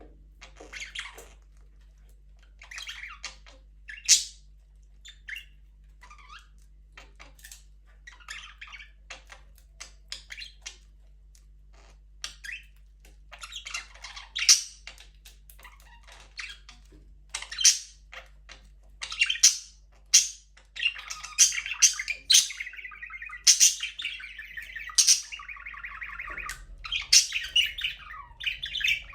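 Budgerigars chirping, with sharp squawks now and then. From about two-thirds of the way in, this turns into a near-continuous warbling chatter with loud squawks over it.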